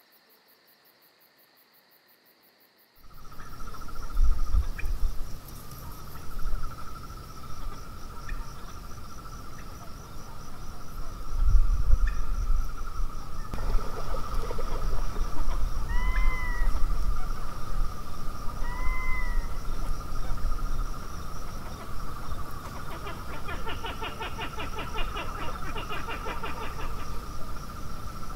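Crickets chirring steadily after about three seconds of near silence, with a low rumble that comes and goes. Two short rising-and-falling calls stand out in the middle.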